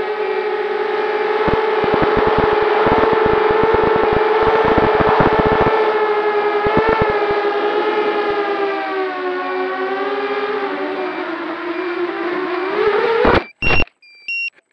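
QAV210 FPV quadcopter's motors and propellers whining steadily, with crackling clicks in the first half. The pitch dips and then rises sharply before a loud hit near the end, as the quad crashes into grass and the motors stop. Short, high electronic beeps follow: the battery alarm warning of low voltage.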